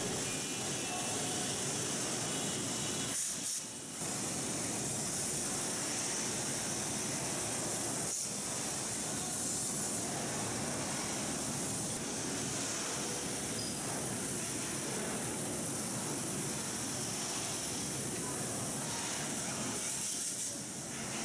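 Steady, even noise of a factory assembly hall, much of it from large wall fans running, with no distinct knocks or tools standing out. It dips briefly about three and a half seconds in.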